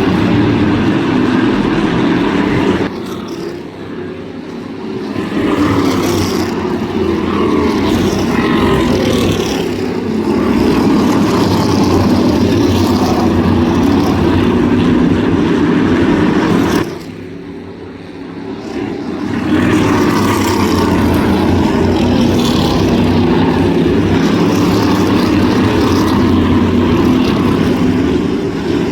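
A pack of Carolina Crate Modified race cars running at speed around a short asphalt oval, the loud drone of their V8 engines going on without a break. It drops away twice, about three seconds in and again around seventeen seconds, then swells back as the field comes round again.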